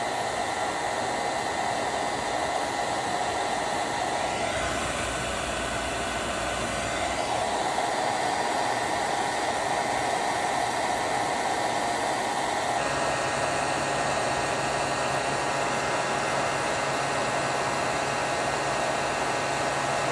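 Handheld hot-air tool blowing steadily, a continuous airy whir with a steady hum in it, heating a colored-pencil layer on canvas so it can be blended. Its tone shifts a few times, about four, seven and thirteen seconds in.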